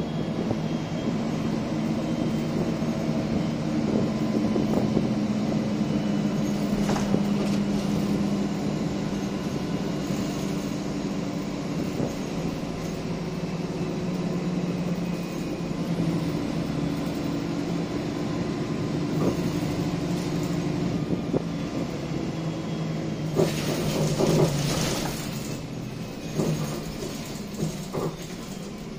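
MAN 18.240 single-deck bus heard from inside the cabin while driving: its six-cylinder diesel engine and automatic gearbox pulling, the engine note rising and falling as it works through the gears. A burst of rattles from the bodywork comes about three-quarters through, and the engine gets quieter near the end.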